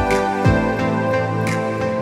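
Background music: held synth chords with a deep drum hit that drops in pitch, twice near the start.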